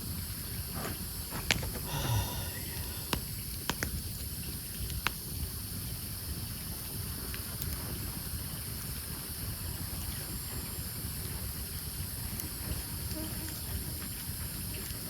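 Wood campfire burning with a steady hiss and a few sharp crackling pops in the first five seconds, then settling to an even hiss.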